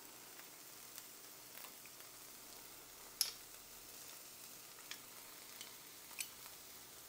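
Chopped onion, bell pepper and garlic frying in olive oil in a skillet: a faint steady sizzle with a few short crackles, the loudest a little over three seconds in.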